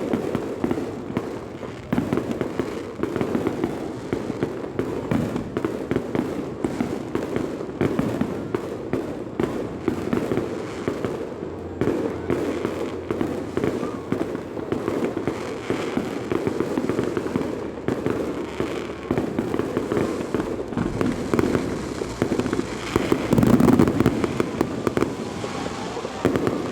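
Fireworks display: a dense, unbroken run of bangs and crackles, with the loudest flurry of bursts near the end.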